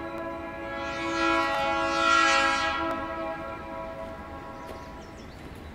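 Diesel locomotive's air horn sounding one long chord of several notes. It swells to its loudest about two seconds in and fades out by about five seconds in.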